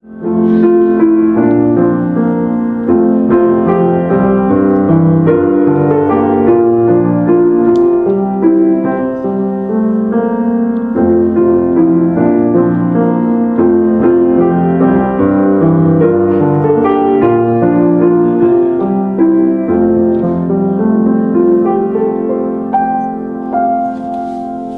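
Piano music: a continuous run of sustained notes and chords, growing quieter in the last few seconds.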